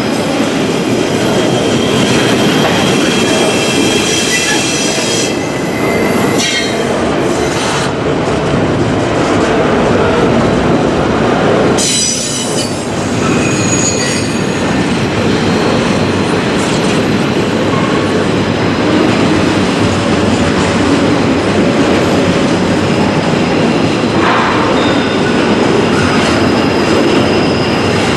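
Double-stack container train's well cars rolling steadily past close by: a loud, continuous rumble of steel wheels on rail with clicks over the rail joints and thin, steady high-pitched wheel squeal. The sound dips and changes briefly about twelve seconds in.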